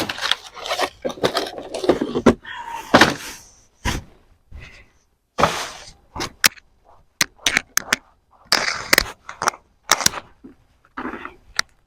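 Hands digging through a container of soil to harvest sweet potatoes: an irregular run of sharp clicks, knocks and scrapes with short pauses, busiest in the first few seconds.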